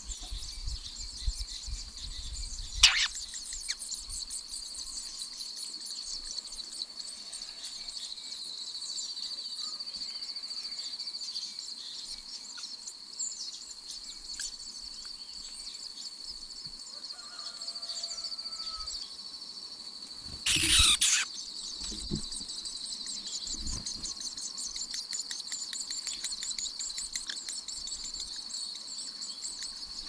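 Steady chorus of insects, a continuous high-pitched buzz with a fast trill over it. A sharp click sounds about three seconds in and a short, loud burst of noise about twenty-one seconds in.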